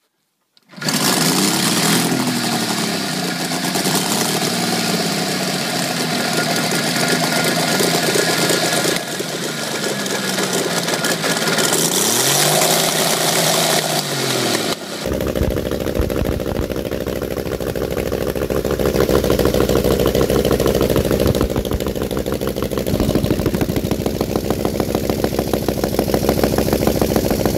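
Megola motorcycle's five-cylinder rotary engine, built into the front wheel, running and revving, its pitch rising and falling. About halfway through it cuts to a different engine running steadily with a deeper, fast even beat.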